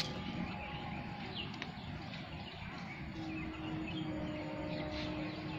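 Outdoor background with faint scattered bird chirps, and a low steady hum that comes in a little past halfway.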